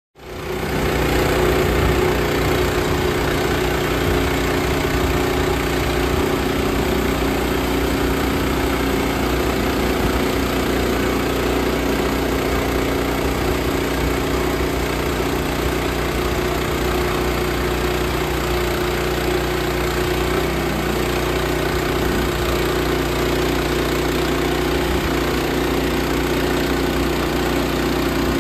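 Small sawmill's gasoline engine running steadily.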